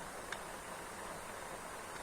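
Rain falling steadily, with a single sharp tick about a third of a second in.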